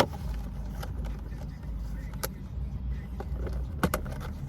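Steady low rumble inside a parked car's cabin, with a few sharp clicks and taps, one about two seconds in and a quick pair near the end.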